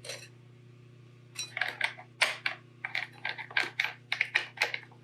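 Quick, irregular light clicks and ticks of small screws and hand tools being handled while hardware is fitted back on, over a steady low hum. The clicks start about a second and a half in.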